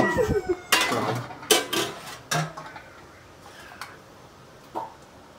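Clatter of a cooking pot and kitchen utensils: several sharp knocks in the first couple of seconds, then quiet apart from one faint knock near the end.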